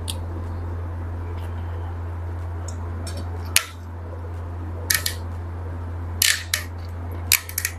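Sharp plastic clicks and cracks from the red cap of a Royal Stag whisky bottle being twisted to break its seal. The first click comes about three and a half seconds in, then come three short clusters of clicks, over a steady low hum.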